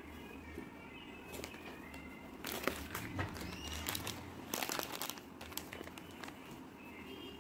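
Plastic packet crinkling as it is handled, in two bursts of rustling about two seconds apart.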